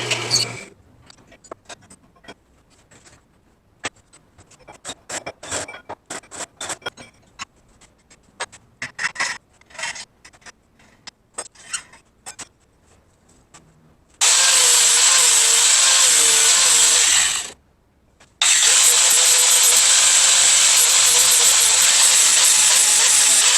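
Scattered clicks and clanks of steel parts being handled and set up. About fourteen seconds in, a metalworking tool on steel starts a loud, steady hiss that runs for about three seconds. It stops briefly, then starts again and runs on.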